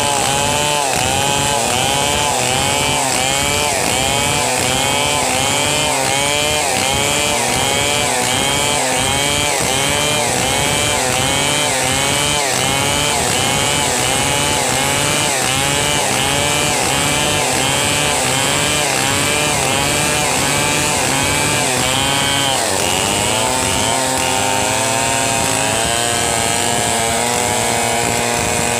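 Two long-bar chainsaws running at full throttle, ripping a log lengthwise into planks; the engine pitch wavers up and down in a quick repeating rhythm as the saws work through the cut. About 23 seconds in, the sound settles to a steadier pitch.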